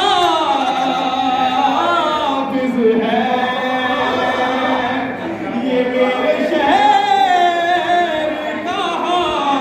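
A man's voice chanting an Urdu devotional poem in praise of Ali into a microphone, in long held notes that bend up and down in pitch.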